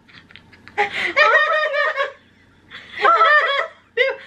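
Women laughing hard in two bursts, one about a second in and another near three seconds in.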